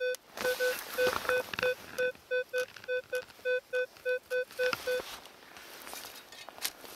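Minelab Equinox 600 metal detector giving short, same-pitched beeps, about three a second and unevenly spaced, as the coil is swept over a buried metal target. The beeping stops about five seconds in.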